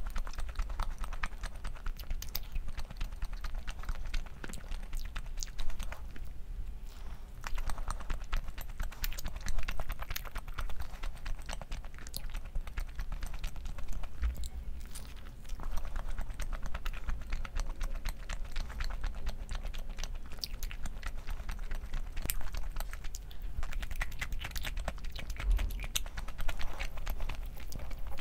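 Close-up eating sounds: chewing and crunching with many small, irregular clicks and taps throughout.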